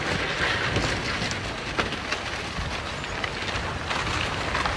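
Earthquake-triggered landslide: a mass of soil, rock and debris sliding down the hillside in a steady rushing rumble, with many sharp cracks and snaps throughout.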